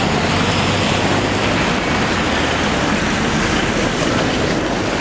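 Steady street traffic noise, an even loud rush of passing vehicles.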